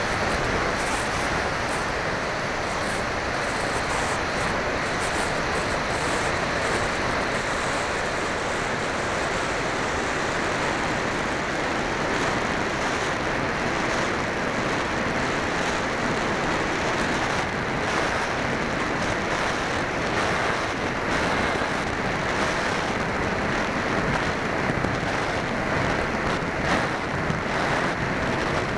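Steady rush of wind on the microphone of a camera carried aboard a small aircraft on a high-speed run.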